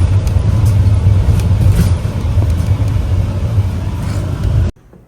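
Moving vehicle heard from inside: a steady low engine and road rumble that cuts off abruptly near the end.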